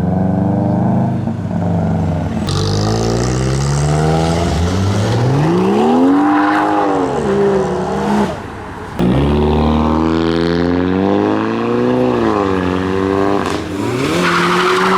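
Modified car engines revving and accelerating away, the pitch climbing and falling several times as the cars pull off. Just past halfway the sound drops briefly, then cuts back in suddenly.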